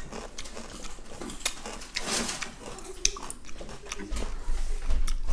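A person chewing food with the mouth closed, close to a clip-on microphone: soft wet clicks and smacks. A low rumble comes in about four seconds in.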